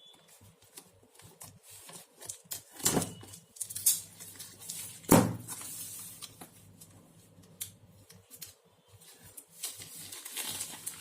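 A pen tablet's packaging box is handled: scattered taps, clicks and rustles, with a sharp knock about five seconds in.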